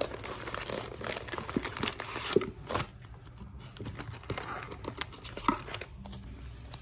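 Packaging being opened by hand, crinkling and tearing with scattered small clicks: busy for the first three seconds, then sparser rustles.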